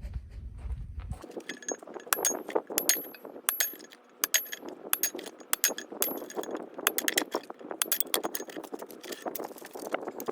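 A rapid, irregular run of sharp clinks and taps from small hard objects, several with a thin high ring, starting about a second in.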